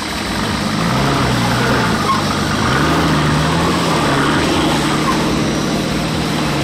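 Nissan Patrol GU 4WD's engine pulling under load as it crawls over a sandy rock mound, its revs stepping up about one second in and again about three seconds in, then holding steady.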